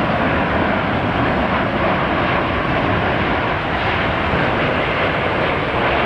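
Boeing 787 Dreamliner on final approach, its two jet engines giving a steady rushing jet noise at an even level.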